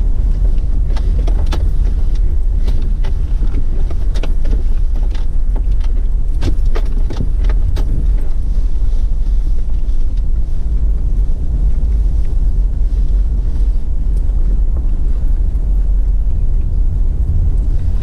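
Fourth-generation Toyota 4Runner with its 4.7-litre V8 driving on an off-road trail: a steady low rumble, with a run of clicks and knocks from about one to eight seconds in.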